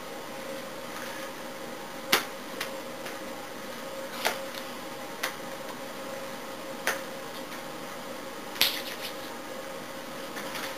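Quiet room tone with a steady faint hum and hiss, broken by about six sharp taps at irregular intervals of one to two seconds.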